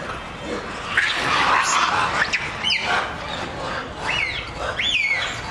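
A loud rush of noise about a second in, then a few short, high squealing animal calls that rise and fall in pitch, about two and a half, four and five seconds in.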